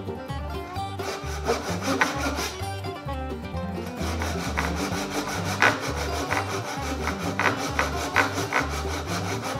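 Pull saw cutting a kerf lengthwise down a wooden hatchet handle, ripping with the grain in steady back-and-forth strokes.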